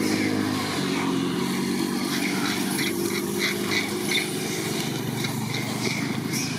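An engine running steadily, with an even low hum. From about two to four seconds in, a quick run of short high squeaks rises over it.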